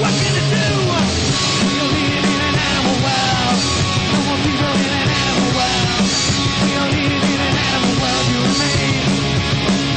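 Punk rock band playing live: distorted electric guitars, bass and drums, with a steady beat.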